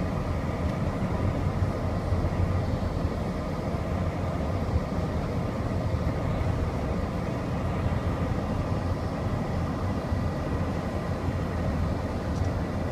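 Steady road and engine noise of a moving car, heard from inside the cabin, mostly a low rumble.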